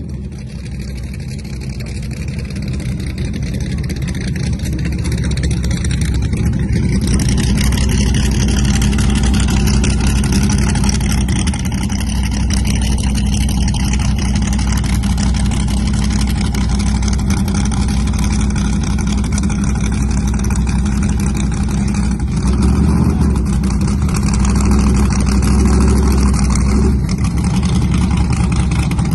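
Modified drag-racing engines idling loudly with a deep, steady rumble, building over the first several seconds and swelling again about twenty-two seconds in as the cars stage.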